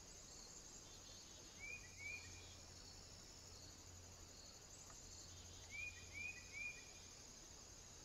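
Faint, steady high-pitched chirring of crickets in the background, with short sharp chirps over it: two about a second and a half in and three near the six-second mark.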